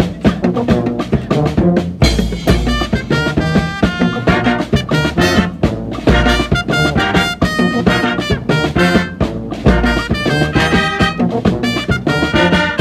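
Brass band music: horns playing held and moving notes over drums with a regular beat.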